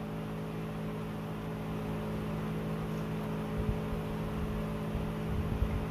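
Steady electrical or mechanical hum with a background hiss, with a few soft low thuds in the second half.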